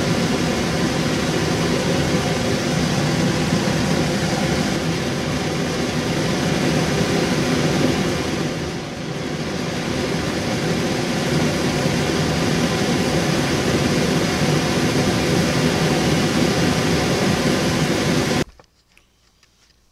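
Homemade propane forge burner (3/4-inch pipe tube, 1-inch tee air intakes, MIG-tip gas jet) running at full flame with a loud, steady hiss. The sound dips briefly about nine seconds in and cuts off suddenly near the end.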